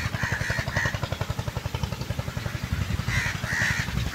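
Crows cawing repeatedly, a few calls at the start and more in the last second, over strong wind buffeting the microphone.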